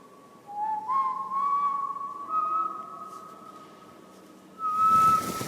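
Long, steady whistle-like tones that overlap and step upward in pitch, fading briefly before one tone returns over a rising rush of noise near the end.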